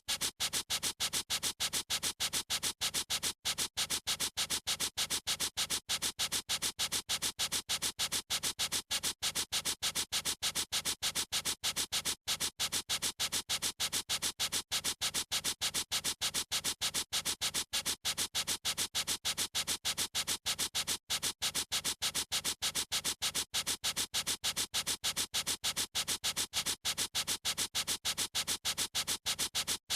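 Felt-tip marker scribbling on paper in rapid back-and-forth strokes, about five scratchy strokes a second in an unbroken, even rhythm.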